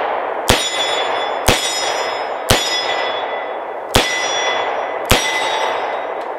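Five shots from a Rock Island Armory AL3.1 snub-nose .357 Magnum revolver firing 158-grain .357 Magnum rounds, about a second apart with a longer pause before the fourth. Each shot is followed by the ringing clang of a steel target being hit.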